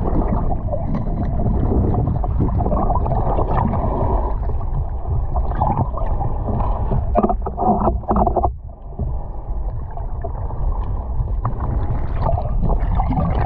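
Muffled, churning rush and slosh of sea water just below a choppy surface, heard through a waterproof camera housing, with a short quieter moment about eight and a half seconds in.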